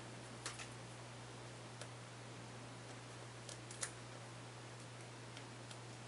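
Faint, scattered small ticks and clicks of paper pieces being handled as the backing papers are peeled off foam adhesive dimensionals, over a steady low hum.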